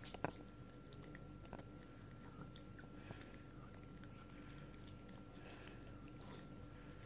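A small dog chewing sticky toffee: faint wet mouth and jaw sounds, with a sharp click just after the start and a few softer clicks in the next second or so. A faint steady hum runs underneath.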